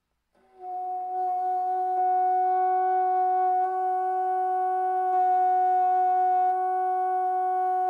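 Moosmann 222 bassoon fitted with a Jordan key playing one long held note, starting softly about half a second in and growing stronger about two seconds in, then held steady.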